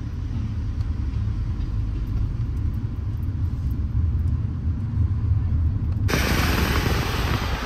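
Low, steady rumble of a car's engine and tyres heard inside the cabin as it rolls slowly forward. About six seconds in it switches abruptly to a louder, even rush of wind and road noise.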